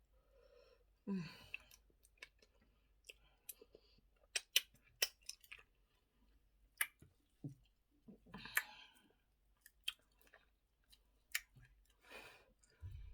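Close-up eating sounds: wet mouth clicks and chewing of eba with okra soup, with a short appreciative "mm" about a second in.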